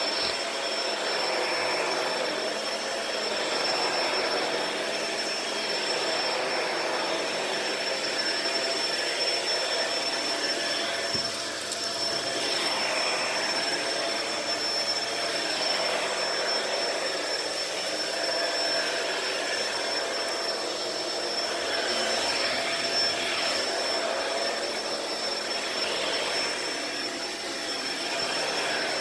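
Shark Rotator Powered Lift-Away upright vacuum cleaner running steadily while vacuuming carpet: a constant motor whine with a high tone over a lower hum, rising and falling a little in level.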